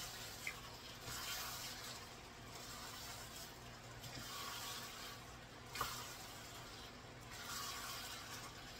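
Spatula stirring a thick cheese dip with ground meat in a hot skillet: faint wet scraping and squishing that swells with each stroke, with a brief click a little before six seconds in.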